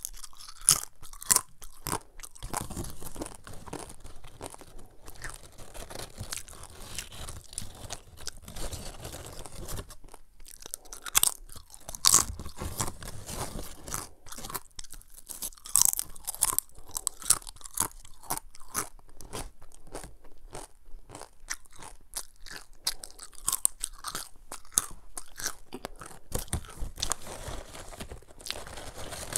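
Crisp cassava chips being bitten and chewed: a dense, irregular crackle of crunches, with a few louder bites near the middle.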